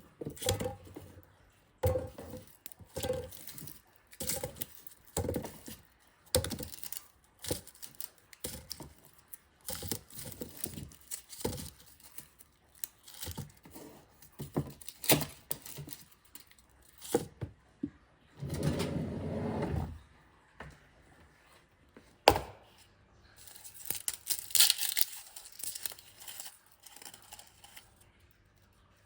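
Onions being handled and prepared by hand: irregular taps and knocks, with papery tearing and crinkling. A denser rustle comes a little past the middle, and a hissing rustle near the end.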